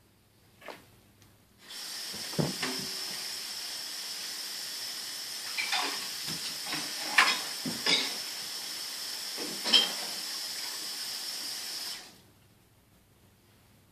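A steady hiss that starts about two seconds in and cuts off suddenly near the end, with several short knocks and thumps over it.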